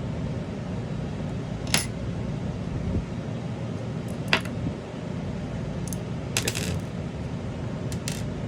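Small metal parts of a Bob Long MTAC paintball marker's bolt assembly clinking as they are handled and pulled apart: a few sharp, light clinks spaced a couple of seconds apart, with a quick flurry of them about two thirds of the way through.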